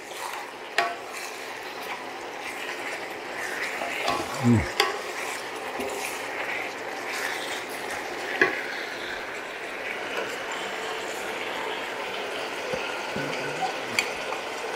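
Noodle and vegetable stir-fry sizzling steadily in a skillet while a wooden spatula stirs and scrapes it, with scattered clicks of the spatula against the pan. Near the end, a spoon clinks in a small bowl as a cornstarch slurry is stirred.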